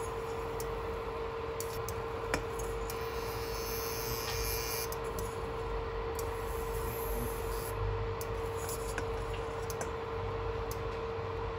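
Steady electrical hum from an induction cooker heating a stainless steel saucepan, with a faint hiss of a pancake frying and a few light clicks of a spatula against the pan.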